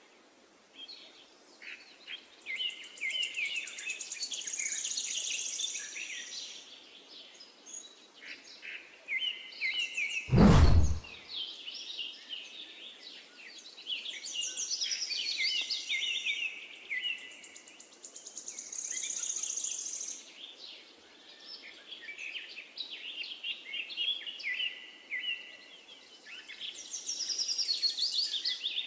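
Birdsong: many small birds chirping and trilling in bursts throughout. About ten seconds in comes one short whoosh, the loudest sound.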